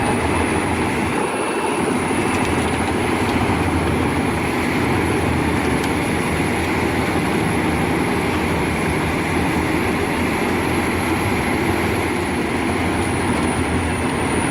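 Industrial wood chipper running steadily, a loud, even mechanical din with a thin high whine held throughout.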